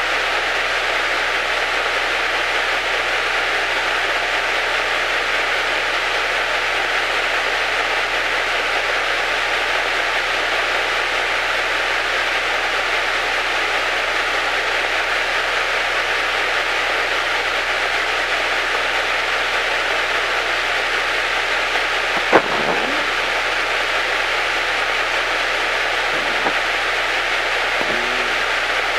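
Steady hiss on the aircraft's radio and intercom audio, with a faint steady tone under it. A few short clicks sound near the end.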